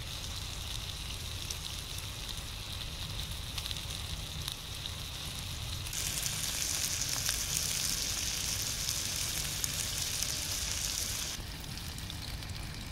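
Beef burgers sizzling in a frying pan, a steady hiss over a low rumble. About halfway through, the sizzle gets much louder and brighter for about five seconds, then drops back.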